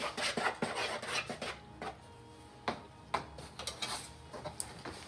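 Soft rustling and scattered light knocks and clicks of things being handled.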